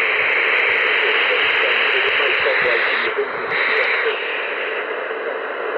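Icom IC-M802 marine HF transceiver receiving in AM on the 5 MHz band: loud hiss of band noise from its speaker, with a faint voice wavering underneath. The hiss thins and drops a little after about three seconds.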